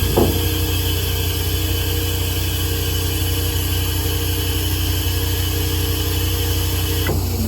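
Ford F550 truck's 6.8-litre V10 running steadily while it drives the hydraulic system, with a steady whine as the outriggers are retracted. A short knock comes just after the start, and the pitch drops suddenly near the end.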